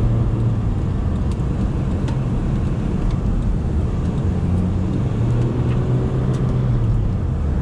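Honda Civic's engine and tyres heard from inside the cabin while driving at a steady pace: a steady low engine drone over road noise.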